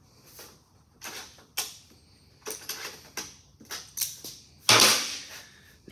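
Hand seamer and thin galvanized sheet metal clicking and clanking as an edge is pushed down and bent into a hem: a run of short irregular clicks and taps, then a louder metallic rattle near the end.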